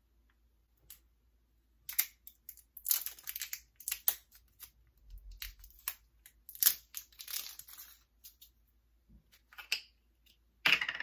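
Plastic seal on the cap of a spice jar being picked at and torn off, with irregular crinkling and tearing in short bursts from about two seconds in and a louder burst near the end.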